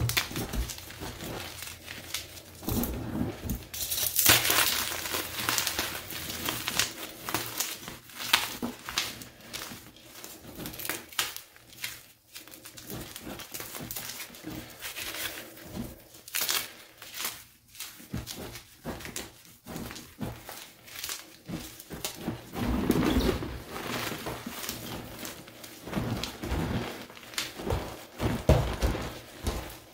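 Hands crushing and crumbling Picsil gym chalk, plain and dyed, in a box of loose chalk powder: dense, irregular crunching and crackling of breaking chunks, with softer powdery rubbing between squeezes. The crunching comes in louder spells, one about four seconds in, one about two-thirds of the way through, and more near the end.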